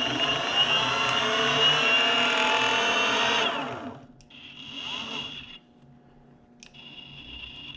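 Boosted Stealth electric skateboard's rear drive motors spinning the wheels under throttle, a whine with a grinding sound, which the owner takes for a failing back left motor. It winds down after about three and a half seconds, followed by two short blips of throttle.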